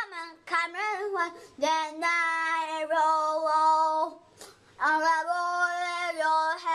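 A child singing alone, unaccompanied, in a high voice that holds long, steady notes, with a short pause about four seconds in.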